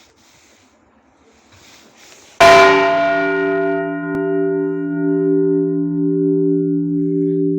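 A large church bell struck once about two and a half seconds in. Its bright upper overtones fade within a couple of seconds, while the deep hum rings on steadily with a slow pulsing waver.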